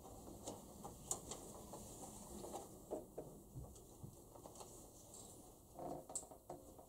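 Faint scattered small clicks, taps and rustles, a few a second, with a louder cluster of knocks about six seconds in: people shifting and handling things in a quiet meeting room.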